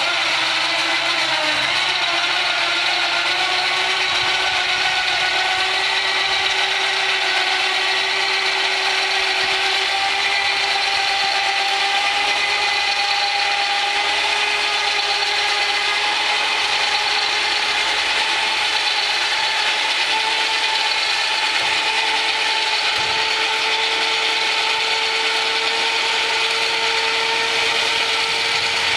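Electric winch on a boat-loading trailer running steadily under load, its motor and gears whining as the cable hauls a small aluminum boat up onto the trailer's top rack. It starts suddenly and its whine slowly rises in pitch as the lift goes on.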